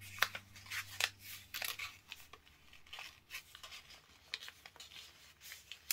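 A sheet of copy paper being folded by hand: scattered short crinkles and rustles as a layer of the paper airplane's wing is folded inward and pressed into a crease.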